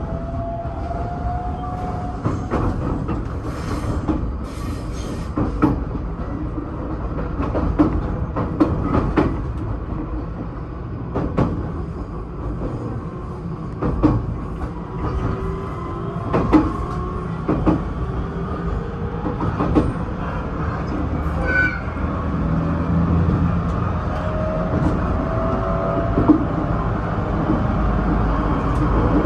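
Electric train running, heard from inside the front car: steady rumble with wheels knocking over rail joints and points at uneven intervals, and the traction motors' whine gliding up and down. A short high squeal comes partway through.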